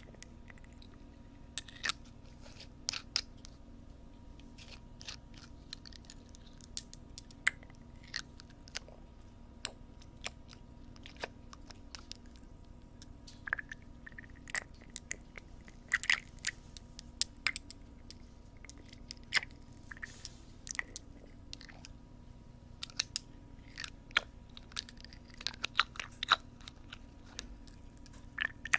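Close-up ear-cleaning sounds on a binaural microphone: irregular crackling scratches and clicks from an ear-cleaning tool worked in the microphone's ear, growing busier in the second half.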